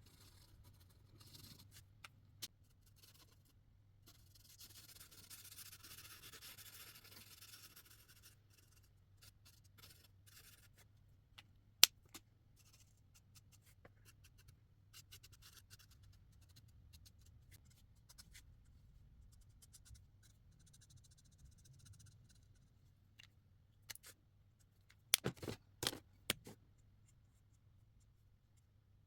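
Marker strokes scratching softly across paper, with scattered small clicks and taps throughout, one sharp click about twelve seconds in and a short cluster of louder knocks near the end.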